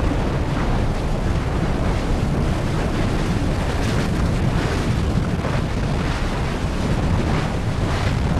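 Nyiragongo's lava lake churning with a steady, deep rumble.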